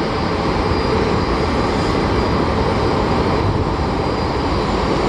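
Jet airliner engines running, a loud steady rush of noise without breaks.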